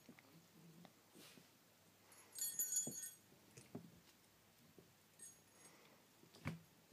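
Puppies scuffling at play, with a few soft thumps and a small bell jingling briefly about two and a half seconds in.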